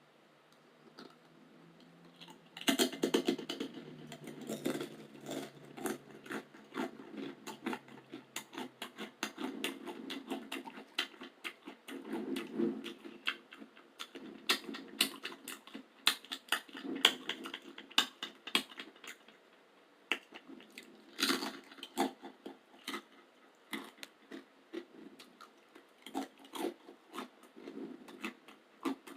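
Crunchy chewing of roasted garlic crackers, close to the microphone. After a quiet start, a loud crunch comes about three seconds in, then rapid, irregular crunching runs on, with another loud burst of crunches about three-quarters of the way through.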